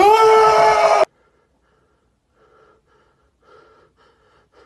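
A man's loud, high-pitched shriek holding one pitch for about a second, cut off abruptly, then only faint short breaths.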